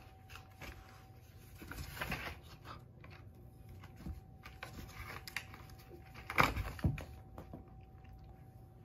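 Two cats scuffling on a cardboard scratcher: scattered scratching and scuffing with soft knocks of the cardboard, the loudest a pair of sharp knocks about six and a half seconds in.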